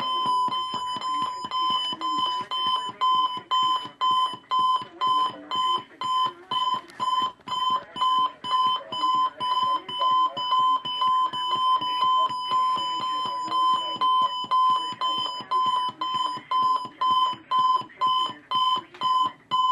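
Electronic alarm clock beeping: one steady, shrill, high beep repeated about twice a second without a break, with a fainter irregular sound underneath.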